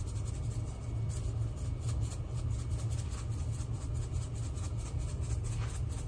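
A steady low hum, with faint light ticks of a spice shaker being shaken as seasoning is sprinkled over raw steaks.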